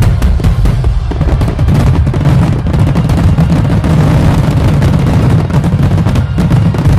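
Rapid barrage of fireworks exploding, many booms and cracks overlapping into a continuous rumble, with separate sharp bangs in the first second.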